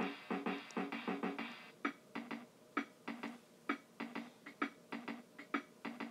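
Simple electronic music with a steady beat of short, sharp hits and short repeated notes.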